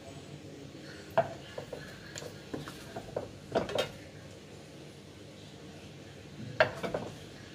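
Wooden spatula knocking and scraping against a stainless-steel frying pan and a ceramic plate as cooked prawns are scooped out and served, giving scattered clinks and taps. They come in a run through the middle, with the loudest around the middle, and a last pair near the end.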